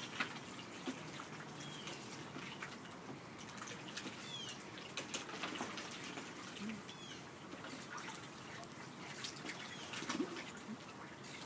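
Young mallard ducks dabbling and feeding on lettuce in a shallow plastic kiddie pool: bills slapping and splashing the water with many small clicks and drips, and a few short high peeps.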